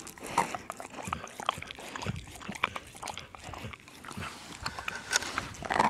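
Small dog nosing at a crack in frozen pond ice close to the microphone: sniffing and licking, with scattered small clicks and scrapes.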